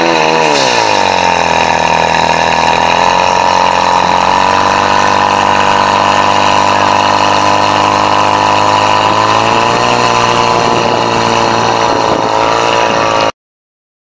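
Portable fire pump engine running hard at high revs while pushing water through the hose lines. It revs up at the start, holds a steady high pitch, sags slightly about ten seconds in, and cuts off suddenly near the end.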